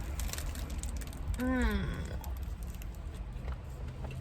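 A person chewing a big mouthful of pizza with wet mouth clicks and smacks. About a second and a half in there is a brief closed-mouth hum of the voice that falls in pitch.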